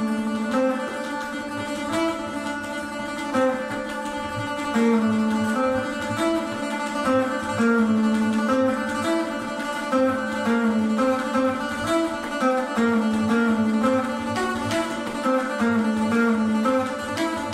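Raag Charukeshi played on an Indian slide guitar laid flat on the lap, the melody gliding from note to note, with tabla keeping a steady beat underneath.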